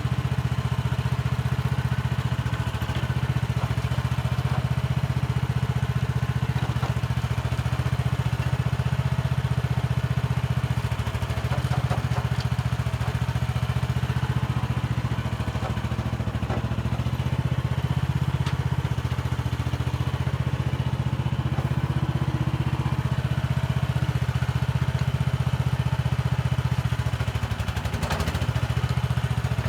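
Petrol-engined mini excavator running steadily as it works, its engine note dipping briefly a few times, with occasional faint knocks from the bucket and soil.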